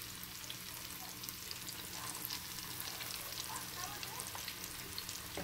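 Battered walleye and crappie pieces deep-frying in hot oil: a steady sizzle dotted with many small pops and crackles.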